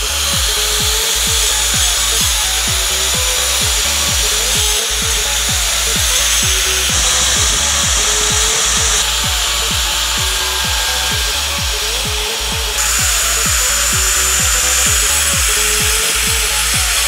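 Makita angle grinder with a segmented diamond blade cutting into a clay brick: a steady high grinding hiss that changes abruptly a few times where the footage is cut. Electronic music with a steady beat of about two thumps a second plays under it.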